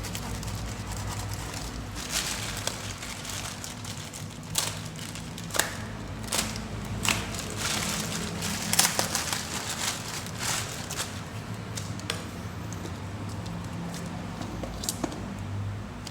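Parcel packaging crinkling and rustling in scattered bursts as it is handled and opened, over a steady low hum.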